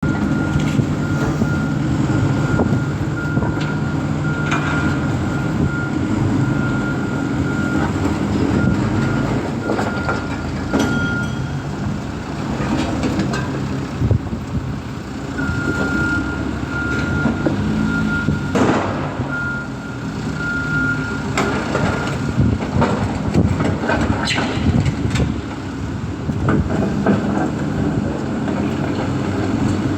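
Heavy diesel construction machinery running with its engine working steadily, while a back-up alarm beeps steadily through the first ten seconds or so and again for about six seconds from the middle. Occasional clanks and knocks come through, loudest just before the second spell of beeping ends.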